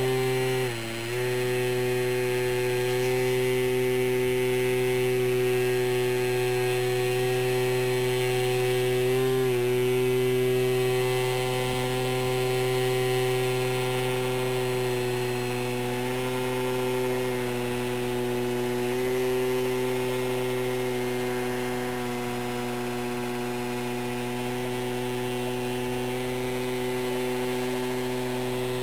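Electric motor and propeller of a foam delta-wing RC plane running at steady high throttle, a constant whine, while it hangs nose-up on its propeller in a hover. The pitch dips briefly about a second in and again around nine seconds as the throttle is corrected.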